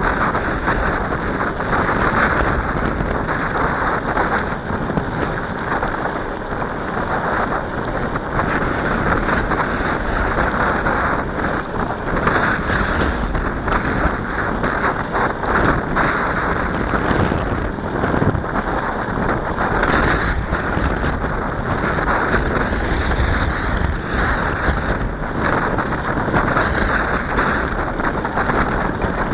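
Wind rushing over the microphone of a camera riding along on a moving bicycle: a steady, unbroken noise, with no words.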